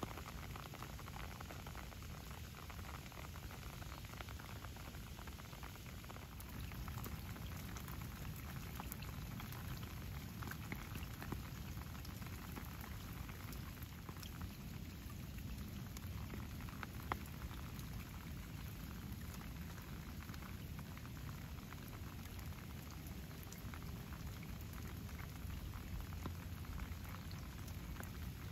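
Light rain falling steadily: a soft hiss of rain with many small scattered drips and patters on wet rock and grass, and one sharper drip more than halfway through.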